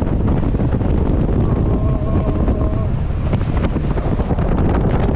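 Wind buffeting the microphone, a loud steady low rumble, with a faint steady tone for a second or so around the middle.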